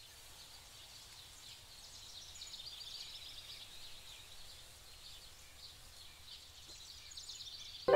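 Faint forest ambience of small birds chirping: many short, high calls overlapping over a soft steady hiss.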